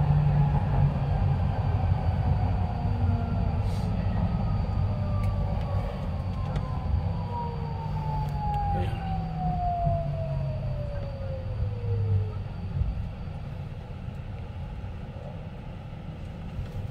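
Incheon Subway Line 2 driverless train slowing into a station: a steady low rumble of wheels on track, under a motor whine that falls steadily in pitch over about ten seconds as the train brakes. The rumble grows quieter toward the end as the train nears a stop.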